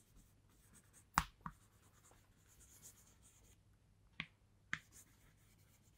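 Chalk writing on a green chalkboard: faint scratching of the chalk stroking the board, with a few sharp taps as it strikes the surface, the loudest about a second in.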